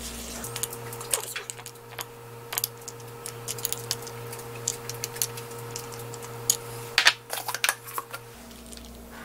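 A spoon clicking and scraping against a small glass bowl as a thick seasoning sauce is stirred and spooned out over a plate of cockles, making irregular light taps, with a cluster of louder knocks about seven seconds in.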